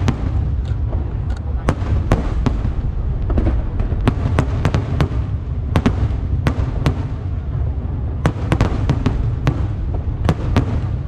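Aerial firework shells bursting in a continuous barrage: a steady low rumble with many sharp bangs, often several a second.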